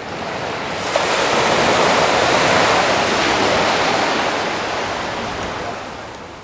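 Surf washing up onto a beach: a rush of white water that swells over about the first second, holds, then slowly dies away near the end.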